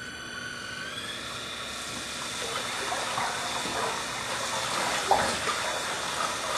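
Quadro Ytron Y Jet rotor/stator tank mixer running in a clear tank of water: churning, rushing water that grows louder as the jet lifts settled solids off the bottom. A steady motor whine steps up in pitch about a second in and then holds. A brief knock or splash about five seconds in is the loudest moment.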